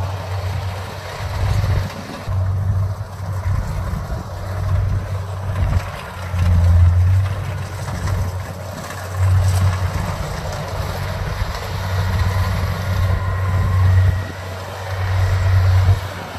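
Kubota DC70 rice combine harvester's diesel engine and threshing gear running steadily while cutting, with repeated low gusts of wind buffeting the microphone.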